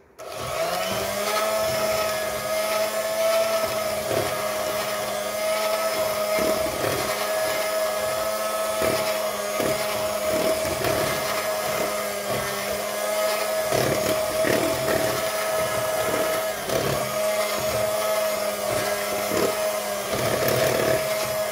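Electric hand mixer beating chocolate chip cookie dough in a plastic bowl. It switches on and rises in pitch to a steady hum, with irregular knocks as the beaters hit the bowl, and it stops near the end.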